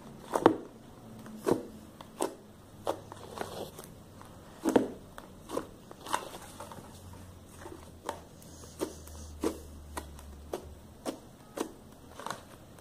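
Fluffy slime made with shaving foam being poked and squeezed by fingers. It gives a string of small, sharp pops and crackles at an uneven pace, about one or two a second.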